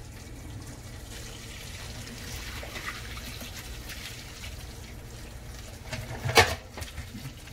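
Seafood-boil water pouring from a large aluminium stockpot into a plastic colander and a stainless steel sink, a steady trickling splash. One sharp knock about six seconds in stands out above it.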